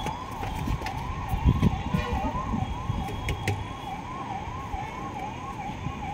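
Electronic siren yelping, its tone sweeping rapidly up and down about three times a second without a break, over a low rumbling noise.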